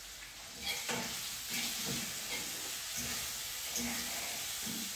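Food frying in a pan on a gas stove, a steady sizzle that gets louder a little under a second in.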